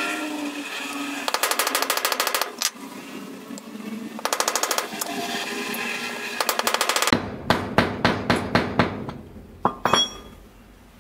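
Claw hammer striking the end of a bamboo knife handle to drive it down onto the blade's tang: a run of quick sharp blows about a quarter second apart in the second half, then two more near the end. Earlier, short bursts of very fast rattling.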